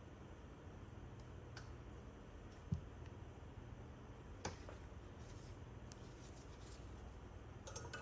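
A few faint clicks and a soft knock of small metal parts being handled over a quiet low hum, as valve keepers are fitted to a valve stem held in a valve spring compressor.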